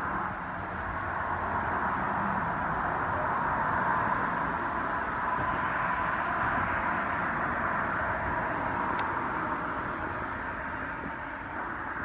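Road traffic: a steady rush of tyre noise from passing cars that swells in the middle and then eases.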